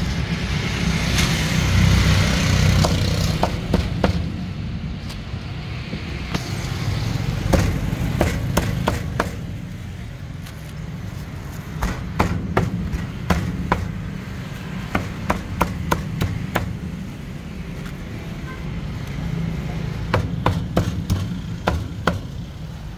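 Cleaver chopping a roasted duck on a plastic cutting board: a run of sharp knocks coming in quick bursts, over a steady low background rumble.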